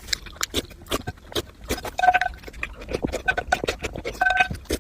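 Close-up crunchy chewing: a dense run of sharp crackles and crunches, with short squeaky notes breaking through a few times.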